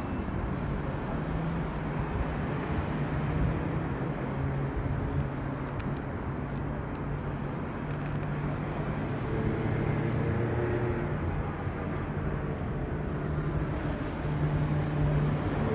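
Fishing boat's engine running steadily, a low hum under a rushing background noise, with a few faint clicks near the middle.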